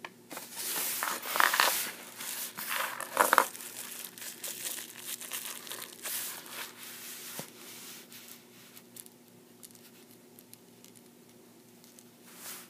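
A paper instruction leaflet and the clear plastic wrap around Beyblade parts crinkling as they are handled. It is loudest in the first few seconds, then thins to light rustles and small ticks, with one more brief rustle near the end.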